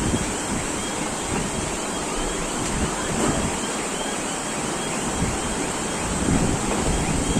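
Steady roar of wind and rough surf in a cyclone, with gusts buffeting the microphone.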